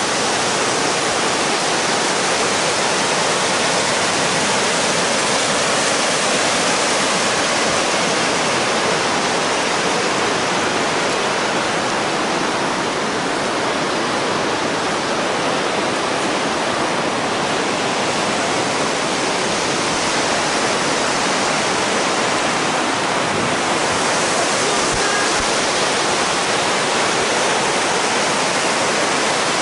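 Ocean surf on a sand beach: a steady, even rush of water noise.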